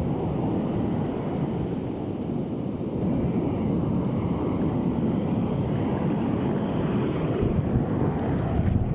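Strong onshore wind buffeting the microphone, with ocean surf washing in underneath as a steady rough rumble.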